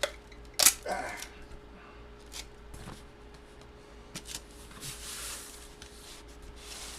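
Handling of a large photo and its packaging: a sharp tap about half a second in, a few light taps, then soft rustling and sliding of paper and plastic, over a faint steady electrical hum.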